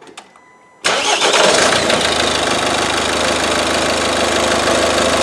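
Ford S-Max's 1.6 TDCi four-cylinder diesel engine starting about a second in, catching at once and settling into a steady idle. It runs smoothly on a freshly replaced fuel filter, a sign that the fuel system has been bled of air.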